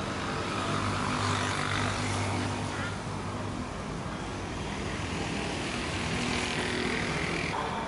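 A steady engine drone with a low hum, its higher part swelling and fading and dropping off suddenly near the end.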